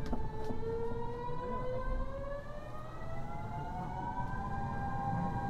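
Mitsubishi GTO-VVVF traction inverter and motors of a Kyoto Subway Series 50 car whining as the train accelerates, several tones rising slowly together, over a low rumble of motors and wheels.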